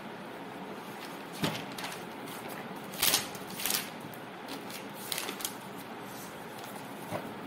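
Pens and paper being handled: about five short, scratchy rustles and taps over a steady background hiss, the loudest about three seconds in.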